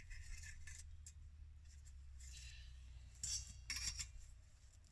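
Metal parts of a twig stove kit being slid and fitted together, giving a few short, faint metallic scrapes and clinks.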